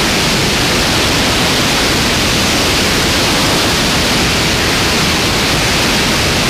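Loud, steady rush of airflow over a camera mounted on an airplane's wing in flight: an even hiss with no distinct engine tone.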